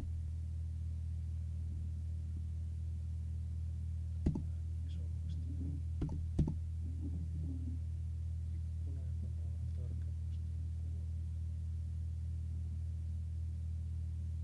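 Steady low electrical hum, with a few sharp clicks: one about four seconds in and two close together about six seconds in.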